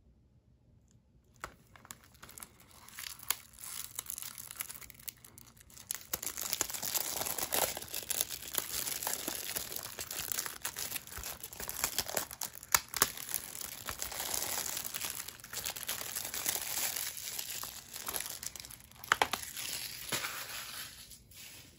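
Plastic shrink wrap being torn and peeled off a Blu-ray case, crinkling continuously with sharp snaps. It starts about a second in and dies away near the end.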